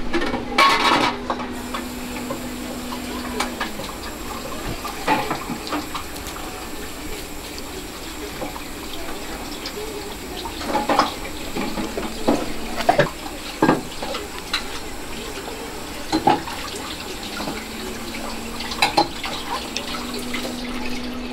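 Restaurant kitchen sounds: a steady rush of running tap water, with scattered short clinks and knocks of dishes and utensils. A low steady hum is present for the first few seconds and comes back near the end.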